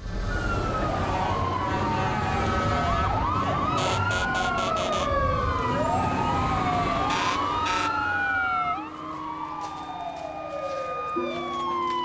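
Several emergency-vehicle sirens wailing at once, their pitches sweeping up and down out of step with one another, over a low vehicle rumble. The rumble drops away about three-quarters of the way through while the sirens continue.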